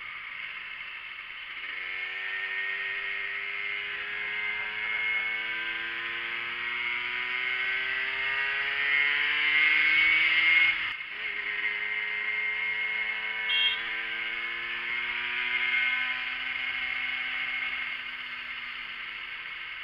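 50cc Yamaha moped's engine pulling under throttle, its note climbing slowly and steadily in pitch, dropping suddenly about halfway when the throttle is closed, then climbing again. Wind noise over the microphone of the moving bike runs under it.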